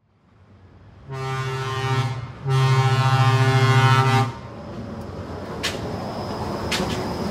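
Walt Disney World monorail's horn sounding twice, a short blast then a longer, louder one. Afterwards comes the steady rolling rumble of the monorail train running along its elevated beam.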